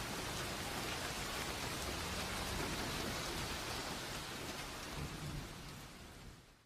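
Rain and thunder sound effect: steady rain with low rumbles of thunder, fading out near the end.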